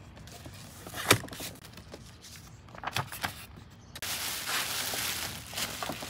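Handling noises: a sharp knock about a second in and a few lighter knocks around three seconds. Then, from about four seconds in, the clear plastic wrap rustles and crinkles as it is pulled off a tabletop pellet grill.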